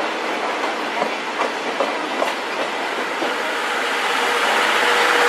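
Train wheels rolling over the station track, clicking several times over rail joints. A thin steady squeal comes in near the end as the sound grows louder.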